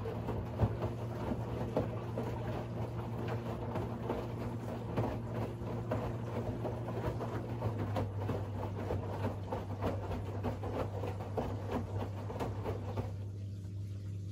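Siemens iQ700 WG56B2090 front-loading washing machine mid-wash: the drum turns, with water and laundry sloshing and rustling over a steady low hum. Near the end the sloshing stops and only the hum remains.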